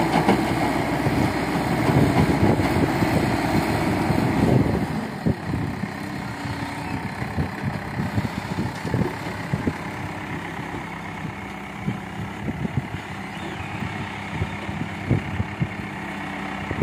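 Caterpillar backhoe loader's diesel engine working hard while its hydraulic crusher bucket crushes stone into gravel, a loud, dense noise. About four and a half seconds in the crushing stops and the engine settles to a lower idle, with scattered knocks and rattles as the machine moves.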